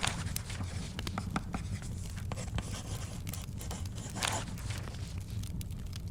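Layered study ambience: pen scratching on paper, with a paper swish at the start and another about four seconds in as pages turn. Scattered fire crackles sit over a steady low rumble.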